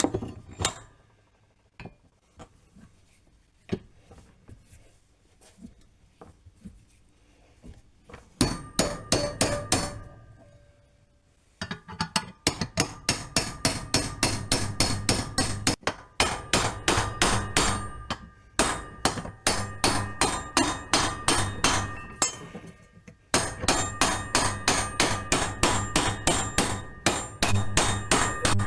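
Hammer striking steel, driving a rod against a quad swing arm's steel bushing that is rusted solid in its housing, each blow ringing metallically. A few scattered light knocks come first. From about eight seconds in there are fast runs of blows, several a second, broken by short pauses.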